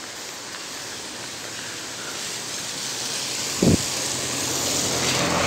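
Steady rain hiss, with a car approaching on the wet road: its tyre spray swells and is loudest near the end. A brief low thump comes a little over halfway through.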